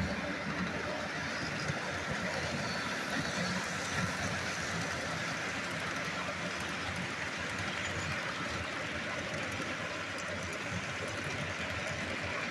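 Model freight train rolling steadily past close by: the even running noise of its cars' wheels on the track.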